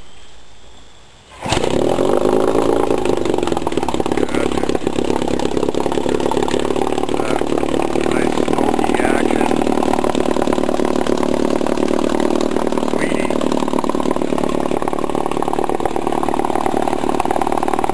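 1958 Johnson Sea Horse 18 hp two-cylinder two-stroke outboard motor, cold-started, catching suddenly about a second and a half in and then running steadily, its lower unit in a bucket of water.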